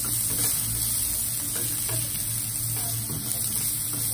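Chopped onions, garlic and cumin sizzling in a little oil in a nonstick frying pan, with a silicone spatula scraping and stirring them around the pan.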